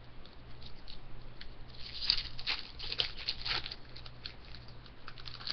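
Hands handling trading cards and a foil trading-card pack wrapper. There is a cluster of sharp crinkles and crackles between about two and four seconds in, with a few lighter ticks around it.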